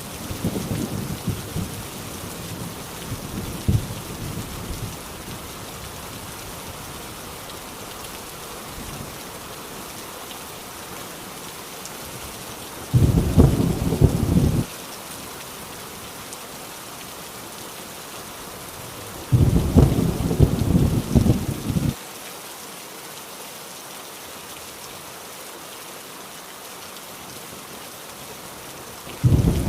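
Heavy rain falling steadily with rolls of thunder: a rumble fading away over the first few seconds, two loud, short thunder rumbles about 13 and 19 seconds in, and another starting near the end.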